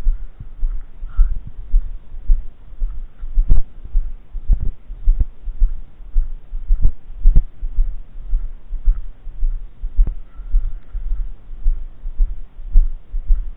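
Irregular low thumping rumble on the microphone, with a handful of sharper knocks.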